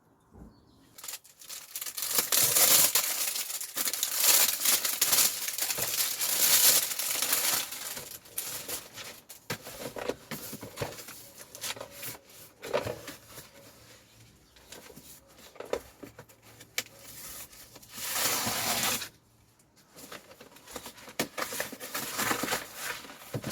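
Product packaging being torn open and handled during an unboxing. There are several seconds of tearing and crinkling, then scattered knocks and clicks, and another short burst of rustling about three-quarters of the way through.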